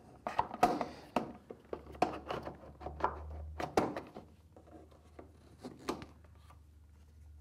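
Plastic footrest and nylon foot strap of a Concept2 Model D rowing machine being adjusted by hand: a run of irregular clicks, knocks and rubbing, busiest in the first four seconds, then a few light ticks.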